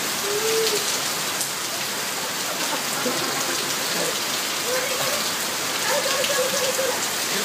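Steady rain falling on wet tiled paving, with water streaming off the edge of a hedge planter.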